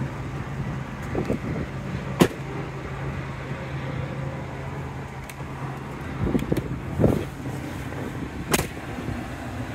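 Lincoln Mark LT pickup's 5.4-litre V8 idling with a steady low hum, heard through the open driver's door. Two sharp clicks, about two seconds in and near the end, and a few soft thumps a little past the middle.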